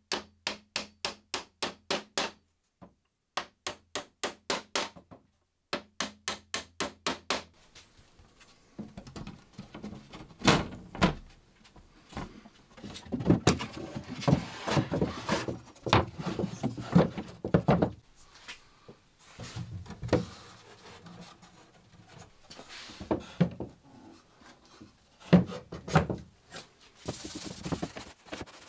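Hammer tapping small nails into a thin wooden strip: quick, even strikes, about five a second, in three runs over the first seven seconds or so. After that come irregular wooden knocks and rubbing as the stool is handled and wiped with a cloth.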